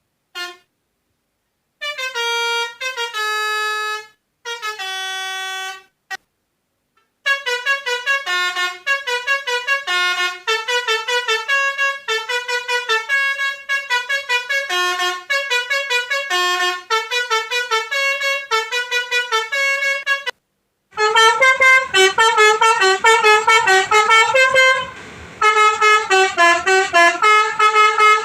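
Telolet 'basuri' bus-horn tunes played on a toy pianika: quick runs of reedy, horn-like notes. A few short phrases with gaps open it, then the notes run on continuously, and from about 21 seconds in they turn louder with a low rumble underneath.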